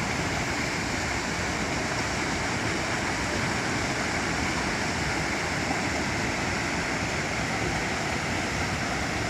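Torrent of floodwater rushing past, an even, unbroken rushing noise at a steady level.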